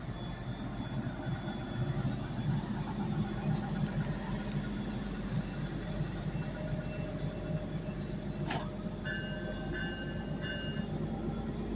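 Stadler GTW diesel railcar running steadily while stopped at a platform, its diesel power module giving a low hum. Partway through, a row of short high beeps sounds, then a sharp click, then a door-closing chime repeated three times as the doors shut.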